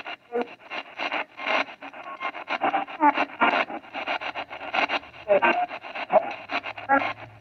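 Spirit-box radio sweeping rapidly through stations: a fast, choppy stream of static with clipped fragments of broadcast sound, several chops a second. Near the end it carries a fragment that the ITC operator hears as the words 'hey Kevin, hang on'.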